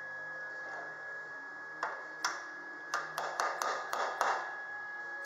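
Hammer tapping a small fabricated sheet-metal box patch into a cut-out in a classic Mini's inner wing to seat it flush: about eight sharp taps at uneven spacing, starting about two seconds in.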